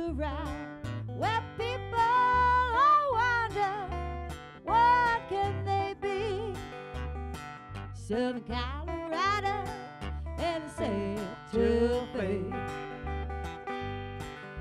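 Live acoustic country blues: a woman singing over a strummed acoustic guitar, with a bass guitar playing a steady low note on every beat.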